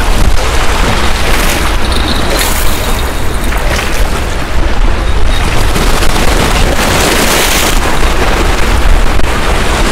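Strong wind buffeting the microphone, a loud steady rumble, with several surges of hiss from sea water washing over the rocks.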